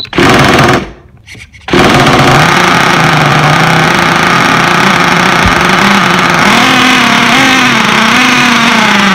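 Small nitro engine of an HPI Savage RC truck, heard in a short loud burst near the start and then running steadily from under two seconds in, its pitch rising and falling a little in the second half.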